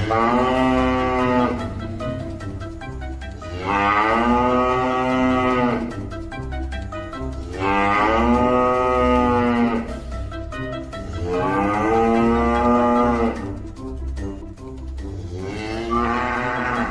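A cow mooing: five long moos, each about two seconds, spaced about four seconds apart, the last starting near the end. Background music with a steady beat plays underneath.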